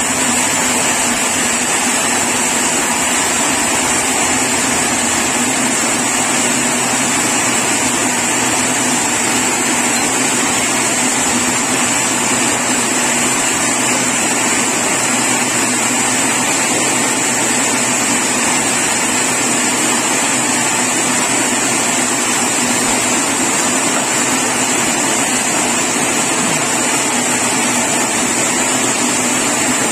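Sawmill machinery running steadily, a loud, even mechanical noise with a steady high whine.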